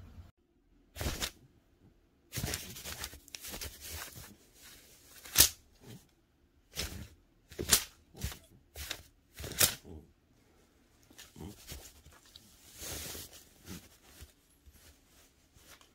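Irregular short rustles and scratches, about a dozen, as a cat batting and clawing at a feather wand toy catches the feathers and the cloth towel under it.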